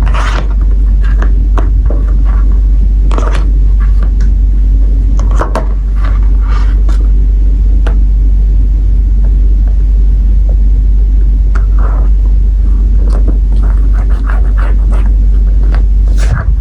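Sticker sheets and packaging being handled, with scattered crinkles, rustles and scrapes at irregular moments, over a loud, steady low rumble.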